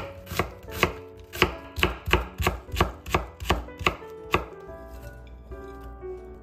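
Chef's knife mincing onion on a wooden cutting board: about a dozen even chops, roughly three a second, that stop about four and a half seconds in.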